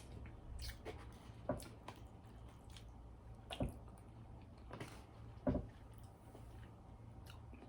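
A person's quiet mouth sounds while eating and drinking: about six soft wet clicks and swallows, spread a second or so apart.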